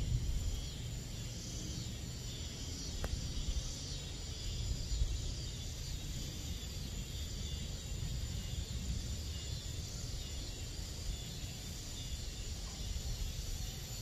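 Summer-night insect chorus of crickets: a steady, dense high-pitched trilling haze, with a steady low rumble underneath.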